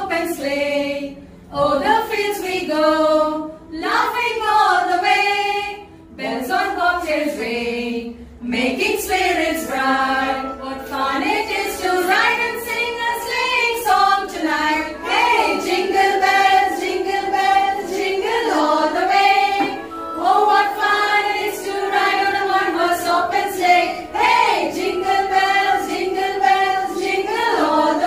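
A group of women singing a song together in chorus, with held notes and short pauses between phrases.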